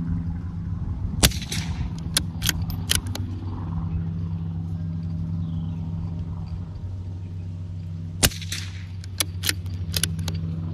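Two shots from a CZ 457 .22LR bolt-action rifle with a suppressor on its muzzle, several seconds apart. Each shot is followed by a quick series of sharp clicks as the bolt is worked to chamber the next round. A steady low hum runs underneath.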